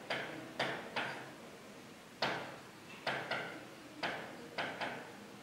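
Marker pen tapping and stroking on a whiteboard while writing: about nine sharp, irregularly spaced taps, each with a short echo.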